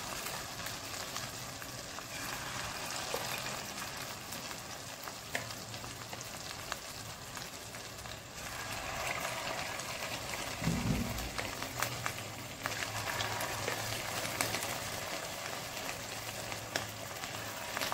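Egg-and-cornflour battered chicken pieces deep-frying in hot oil, a steady crackling sizzle with small pops. It grows fuller about halfway through as more pieces go into the oil, and there is a brief low thump a little past the middle.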